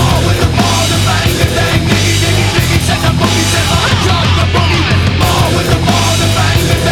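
Loud hard rock music with heavy distorted guitars and drums, starting abruptly.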